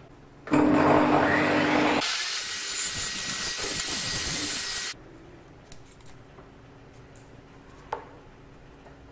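A power-tool motor spins up with a rising whine, then a Bosch benchtop table saw rips a thin wooden strip lengthwise, a loud hissing cut over a steady whine lasting about three seconds that stops abruptly halfway through. A single light knock follows near the end.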